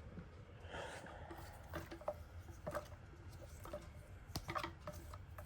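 Faint handling of pop-it fidget toy bracelets: light rustling and a few scattered clicks as they are picked up and sorted through.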